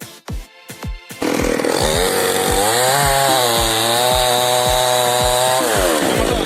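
Background music with a steady beat, then about a second in a chainsaw comes in loud and cuts at speed. Its pitch rises, holds, then falls near the end, while the beat carries on underneath.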